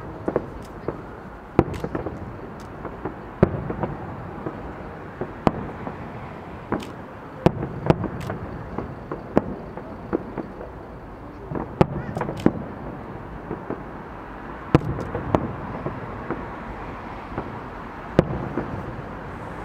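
Aerial fireworks shells bursting: a string of sharp bangs at irregular intervals, roughly one every second.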